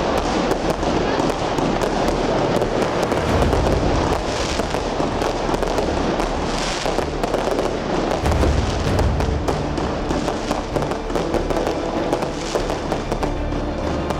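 Consumer firework batteries (Nico Dragon Fight and Nico Out of Limits cakes) firing a dense, continuous barrage of shots and crackling bursts, many per second, with no break.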